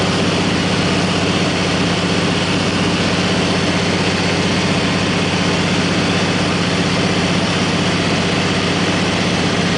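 Floatplane engine and propeller running steadily in flight, heard from inside the cabin as a loud, even drone with a strong low hum.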